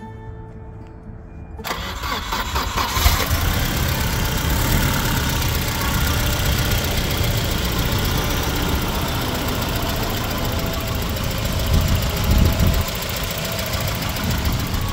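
1989 Volvo 240DL's four-cylinder engine running at a steady idle, heard close under the open hood. The sound cuts in suddenly about two seconds in.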